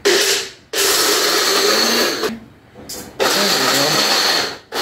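Small electric nut grinder pulsed in bursts, its blades chopping cashews and almonds. A short burst, then a longer one of about a second and a half, a brief blip, and another burst of about a second and a half.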